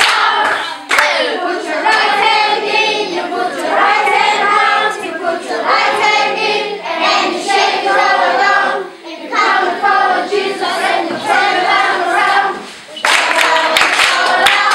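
A group of children singing a song together in phrases, with hand clapping that is strongest about the first second and again near the end.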